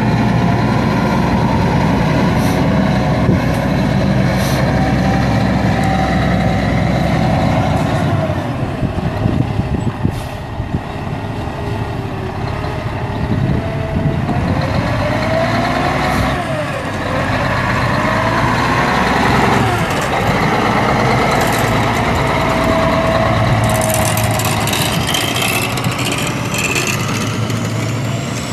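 Cummins ISX 14.9-litre straight-six diesel of a 2004 International 9400i semi tractor running as the truck drives. Its pitch rises and falls several times with throttle and gear changes.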